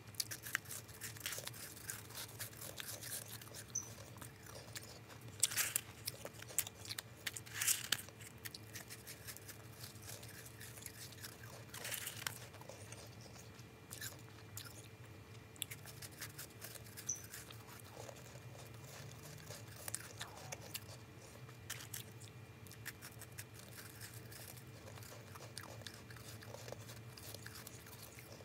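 Soft, snowy ice being bitten and chewed close to the microphone: repeated crisp crunching, with the loudest bites about five and a half, eight and twelve seconds in.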